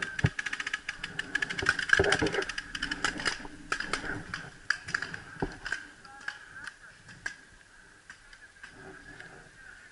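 Paintball markers firing: rapid volleys of many shots a second during the first few seconds, then scattered single shots that thin out and grow fainter.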